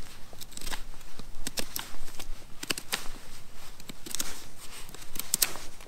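Bushcraft knife carving hard pine wood: short, irregular scraping cuts, roughly two a second, as the blade bites into the wood.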